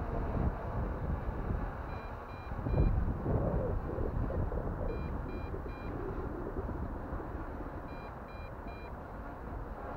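Drone radio transmitter beeping in groups of three short high beeps, a group about every three seconds: a low-battery warning as the flight pack runs down. Wind rumbles on the microphone underneath.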